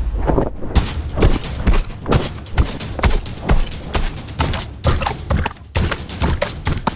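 Designed creature stomps and monster footsteps: a quick, uneven run of heavy thuds, several a second, some louder than others.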